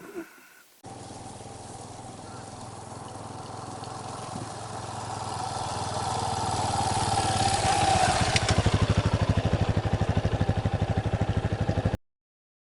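Yamaha Serow's single-cylinder engine running steadily and growing louder. In its last few seconds it goes over to an even, fast pulsing before cutting off abruptly.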